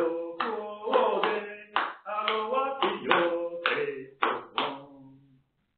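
A man singing the Gospel acclamation in Mina, a Beninese language, clapping his hands in time. The singing and clapping stop about five seconds in.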